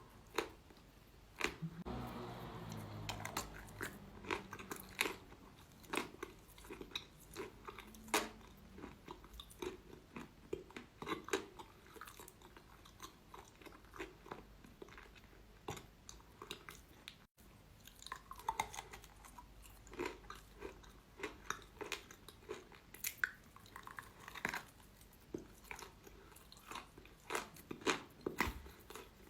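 Close-miked biting and chewing of crunchy eating chalk: many sharp, irregular crunches as the chalk breaks between the teeth.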